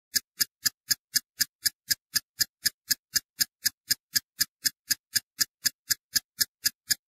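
Steady, even ticking, about four ticks a second, like a clock.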